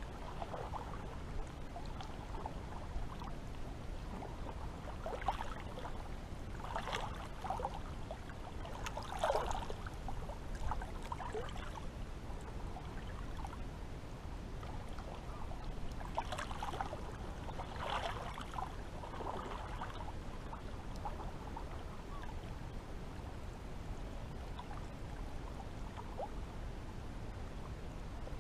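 Seawater lapping and gurgling at the shore. Irregular little splashes and gurgles come in clusters a few seconds in and again past the middle, over a steady low rush.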